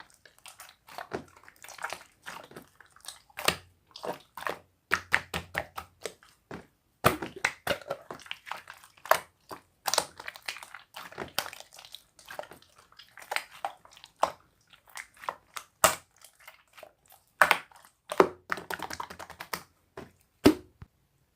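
Close, irregular clicks and taps with bursts of crunchy crackling, like something being handled or pressed right by the microphone.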